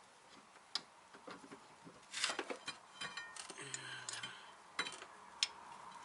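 Metal tools and car parts clinking and clattering: a sharp click, a short rattle, a couple of seconds of clinking with brief metallic ringing, then two more sharp clicks.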